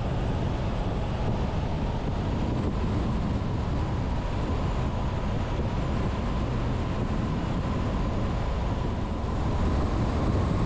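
Steady driving noise of a vehicle on the road: a low engine and tyre rumble with a faint steady whine above it.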